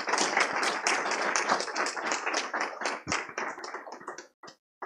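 Audience applauding: many hands clapping together, thinning to a few last claps near the end.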